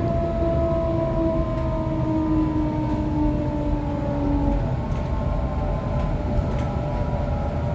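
Waratah electric train heard from inside the carriage as it slows for a station: the traction motors whine in several pitches that slide steadily downward as the train brakes, over a constant rumble of running on the rails. The strongest whine fades out about four and a half seconds in.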